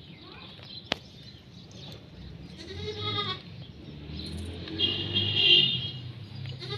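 Male goat bleating twice, the second call louder and higher-pitched, with a third bleat starting at the very end. A single sharp click about a second in.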